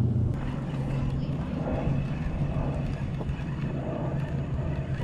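A steady low engine hum under a wash of wind and water noise.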